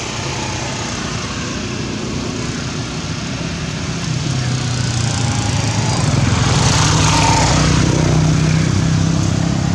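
An engine running with a steady hum, growing louder from about halfway through.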